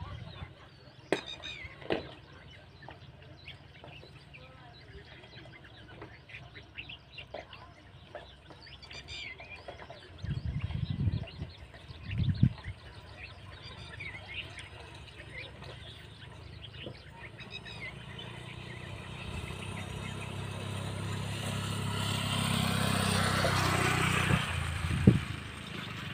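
A vehicle engine, heard from a distance, that revs up and grows louder over the last several seconds, its pitch rising before it drops away near the end. Before it there are faint voices and bird chirps, low rumbles around the middle, and a few sharp knocks.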